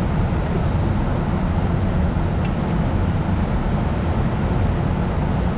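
Steady rush of a fast-flowing river over rapids, mixed with a low wind rumble on the microphone.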